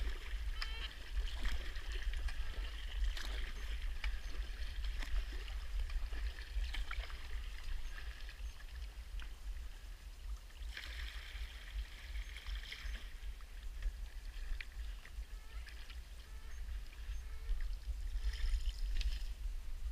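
Kayak being paddled: the paddle blades dip and drip water in spells of strokes, with a few short knocks, over a steady low rumble.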